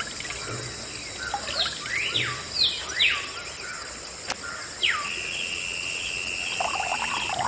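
Birds calling: a series of quick whistled notes sweeping sharply down and up in pitch, then one steady high note held for about two seconds near the end, over a constant faint high whine.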